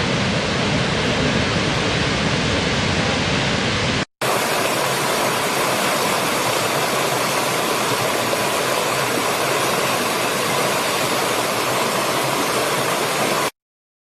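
A large waterfall's heavy, steady rush of falling water. About four seconds in it cuts to the brighter rushing of a small stream over rocks, which stops abruptly shortly before the end.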